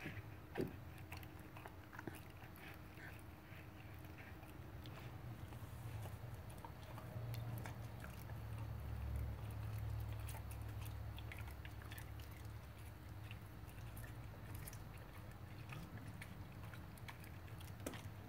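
An old beagle chewing chunks of raw cucumber and green pepper: scattered crunches and clicks of its teeth.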